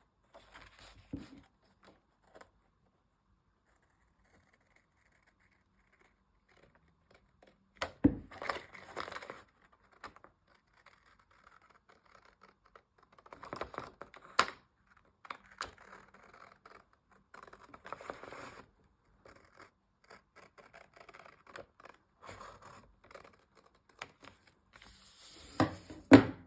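Scissors trimming washi tape along a journal page edge: intermittent snips and scraping with quiet gaps between cuts, the sharpest clicks about eight seconds in and just before the end.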